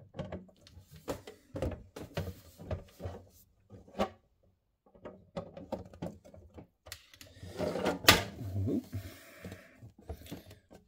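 Hard plastic parts of a model shipping-container display case being handled and fitted together, with the clear window panel pushed into its frame: a run of light clicks, knocks and scrapes, and one sharper click about eight seconds in.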